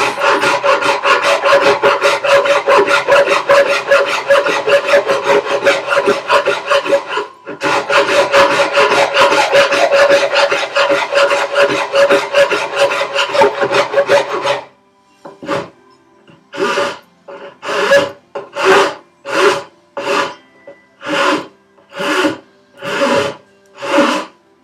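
Coarse hand file rasping wood, enlarging a hole in a workbench apron to fit a vise. Rapid back-and-forth strokes with a brief pause about seven seconds in, then about halfway through it slows to separate strokes at roughly one a second.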